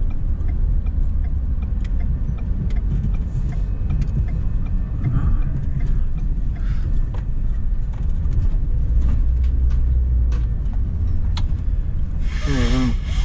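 Vehicle cabin noise from a car driving slowly: a steady low engine and road rumble. Near the end there is a brief wavering vocal sound.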